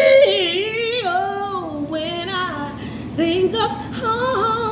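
A woman singing unaccompanied in long, sliding held notes with vibrato, with no clear words.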